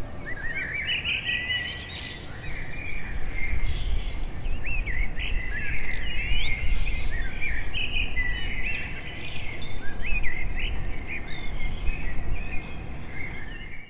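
Garden birds singing and chirping together, many quick rising and falling whistled notes overlapping, over a steady low rumble.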